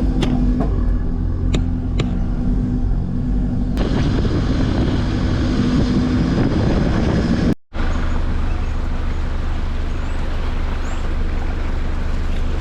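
Nissan Patrol four-wheel drive being driven, a steady engine and road rumble with a held engine drone through the first half. The sound cuts out abruptly a little past halfway, then the same rumble carries on.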